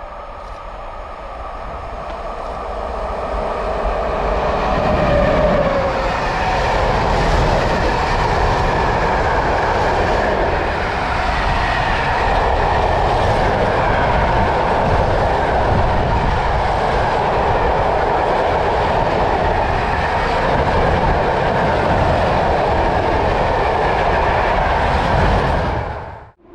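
Train passing close by on an electrified main line, building up over the first few seconds and then running past steadily with wheels clattering over the rails, until the sound cuts off abruptly near the end.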